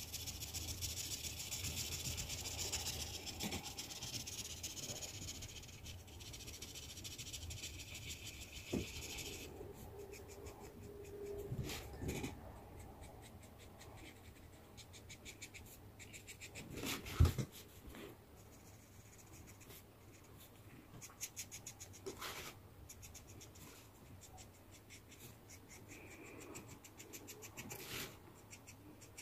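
Felt-tip marker rubbing over sketchbook paper in quick colouring strokes, a steady scratchy hiss for the first nine seconds or so, then quieter intermittent strokes. A few short knocks come in between, the loudest a little past halfway.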